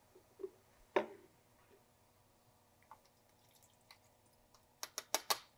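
Kitchenware being handled: a single knock with a short ring about a second in, a few faint ticks, then a quick run of sharp clinks near the end as bowls and a wok are moved.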